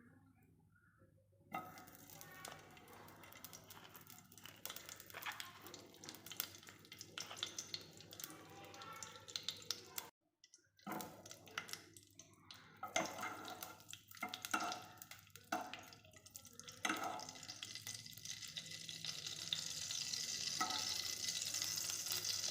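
Ghee being poured into a hot pan and heating, with small clinks and scrapes of a spoon against the pan, then a hiss that rises steadily over the last few seconds as the ghee sizzles.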